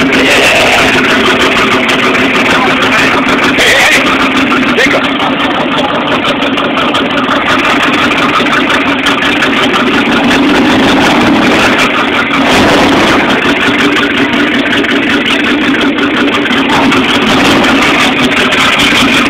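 Freshly rebuilt Chevy 350 small-block V8 running loud and steady through open exhaust headers.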